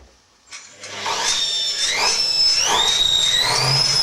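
Washing machine motor starting about half a second in and whining up to speed, its pitch rising in steps, while the drum thumps round about every three-quarters of a second.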